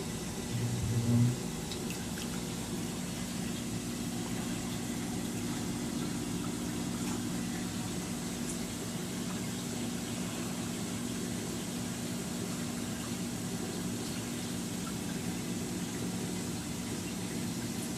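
Steady hum of aquarium pumps and filtration with running water, with a brief low rumble about a second in.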